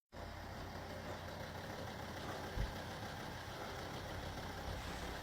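Steady engine noise: a low rumble under an even hiss, with one brief low thump about two and a half seconds in. It starts abruptly just after the beginning.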